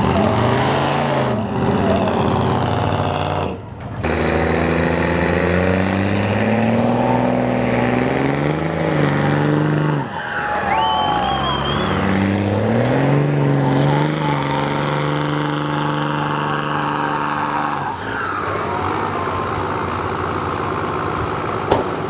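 Pickup truck engines revving hard under load in a truck tug-of-war pull. The pitch climbs and holds high, drops away about ten seconds in, climbs and holds again, and falls off near eighteen seconds.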